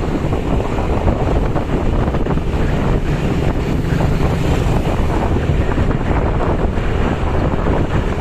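Heavy, steady wind buffeting on the microphone of a camera riding on a moving vehicle, with a low rumble of engine and road noise underneath.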